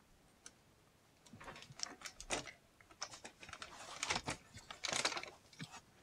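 Light, irregular clicks and taps of small metal lighter parts being handled, starting about a second in.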